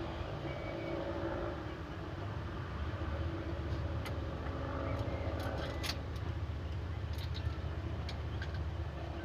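Truck engine running steadily at idle, a low even rumble, with a few faint clicks over it.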